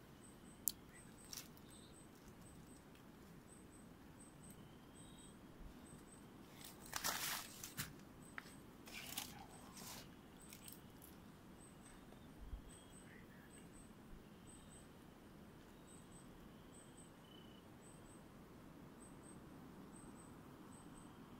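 Night forest ambience: an insect calling in a regular series of short, very high double chirps, over a faint steady background. From about seven to ten seconds in, a cluster of louder rustles and crunches, like leaves being brushed or stepped on.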